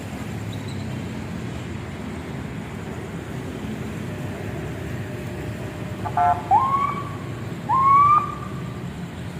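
Locomotive air horn giving two short blasts near the end, each sweeping up in pitch as it starts and then holding. A steady low rumble of the train runs beneath.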